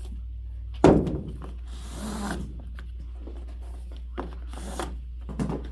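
A vintage rope-tensioned bass drum being handled while its rope lacing is undone: a sharp knock about a second in with a short ringing tail, then rope rustling and rubbing, and a few light taps near the end.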